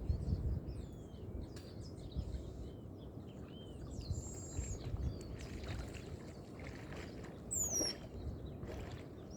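Lakeside nature ambience: a low, steady rumble of water lapping, with scattered birds chirping and a clear falling call near the end.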